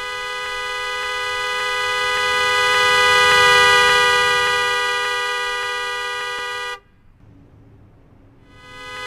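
Car horn held down continuously, two tones sounding together, swelling in loudness and easing again before it cuts off suddenly. After a short gap it starts again near the end.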